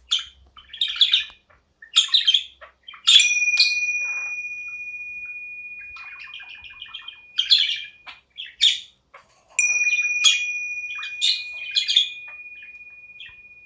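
Budgie chirping and chattering in short bursts. Twice, about six seconds apart, a sharp bell-like ring sounds, a single steady high tone that fades slowly over several seconds.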